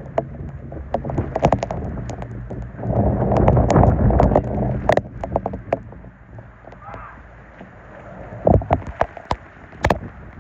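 Wind buffeting the microphone with a gust about three seconds in, and scattered sharp taps and clicks throughout, the loudest two near the end.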